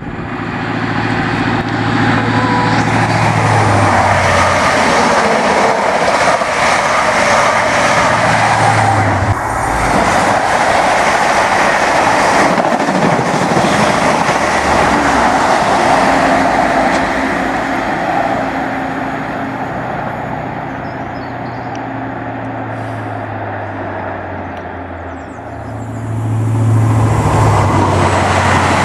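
Diesel train passing close by: engine note over the noise of the wheels on the rails. It is loud for most of the time, eases off about two-thirds of the way through, and swells again near the end.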